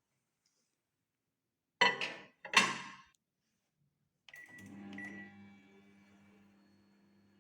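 Two loud clunks less than a second apart, then a couple of short high beeps and a microwave oven starting up with a steady low hum.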